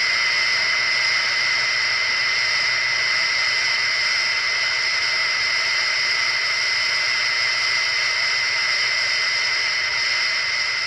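Mothra sound effect from the 1960s Showa kaiju films: a steady hissing rush with two high whistling tones held through it, starting abruptly and beginning to fade near the end.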